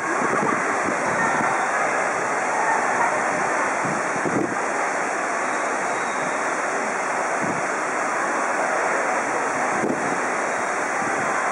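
A steady rushing background noise with no distinct events.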